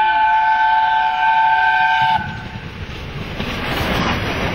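Steam locomotive 60163 Tornado sounding its whistle, a steady chord of several notes that stops about two seconds in. Then the locomotive rumbles and hisses past close by, the noise building as it draws level.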